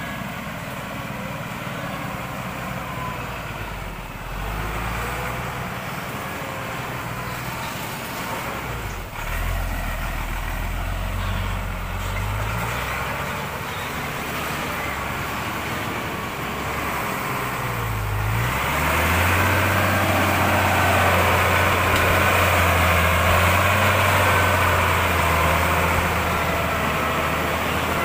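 Loaded log truck's engine running steadily under load. Its speed dips and picks up again twice, then it runs louder and harder for the last third.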